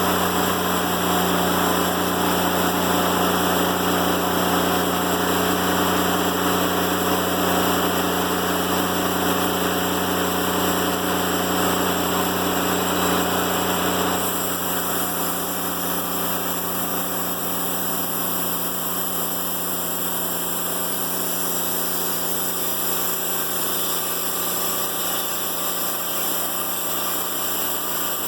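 Timberking 1400 band sawmill running steadily with its blade sawing through a black locust log. The sound is louder in the first half and eases about halfway through.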